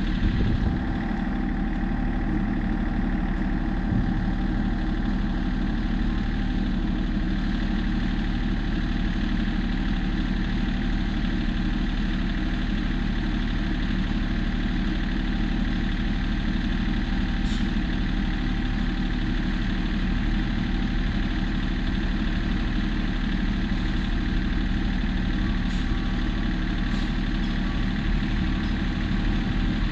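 Diesel engine of a piece of compact equipment idling steadily at an even pitch, with a few faint short clicks in the second half.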